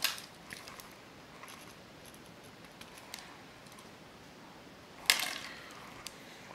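Pen scratching on paper as a short note is written, with faint scattered ticks and a louder brief scrape of hand and paper about five seconds in.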